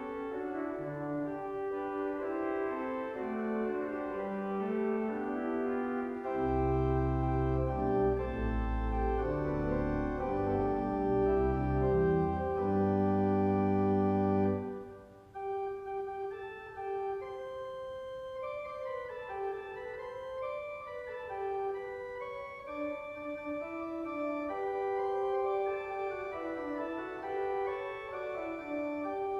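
Church organ playing slow, sustained chords. Deep pedal bass notes come in about six seconds in and drop out about halfway, after a brief break, and the organ then carries on more lightly without them.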